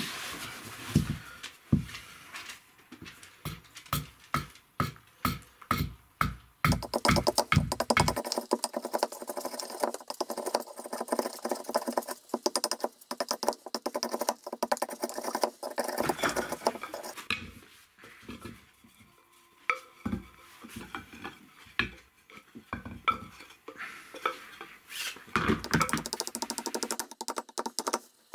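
Hatchet blade chopping into an upright green branch held in a wooden block: a run of sharp knocks about two a second, then quicker, lighter chopping and shaving strokes with pauses. Music plays underneath.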